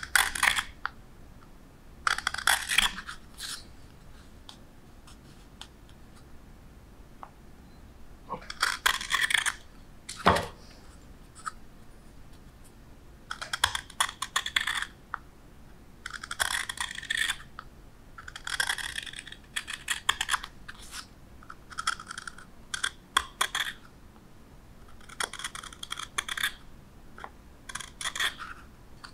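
Hook knife (spoon knife) cutting shavings out of the bowl of a wooden spoon: about ten short, crisp scraping cuts, each under a second or so, with quiet pauses of a few seconds between them. One sharp click about ten seconds in.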